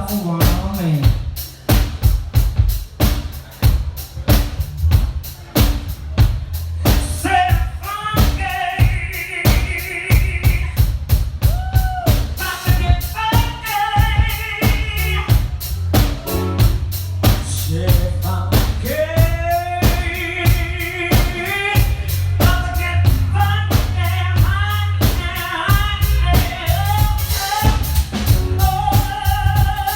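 Live band music: a drum kit keeping a steady beat over a bass line, with a melodic line that comes in about seven seconds in and carries on over the beat.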